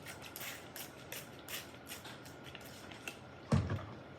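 Hands kneading sticky, half-set clear-glue slime, a run of soft, irregular wet sticky clicks, with one louder thump about three and a half seconds in. The mixture is still gluey and clumpy, not yet slime.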